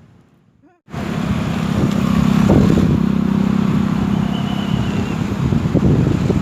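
A motor vehicle engine running steadily close by, with a steady low hum; it starts abruptly about a second in after a moment of near silence.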